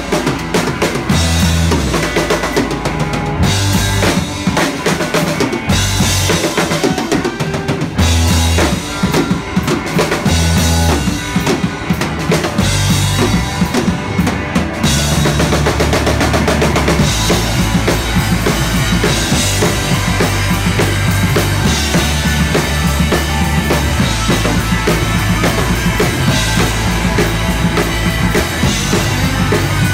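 Live rock band playing, with a drum kit and bass guitar to the fore. The first half goes in a stop-start pattern with short breaks between hits, and the whole band settles into steady playing about halfway through.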